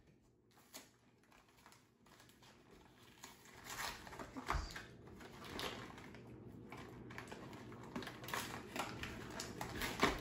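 A small cardboard candy box of Warheads sour cubes being torn open and handled, with faint, irregular tearing, clicking and rustling that begin about three seconds in.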